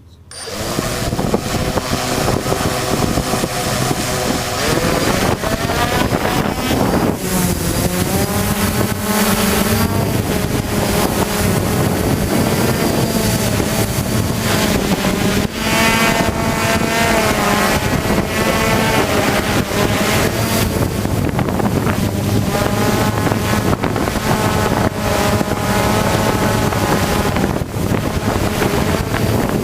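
Hexacopter's electric motors and propellers whining, the pitch wavering up and down throughout, over wind buffeting the microphone. The sound comes in abruptly just after the start.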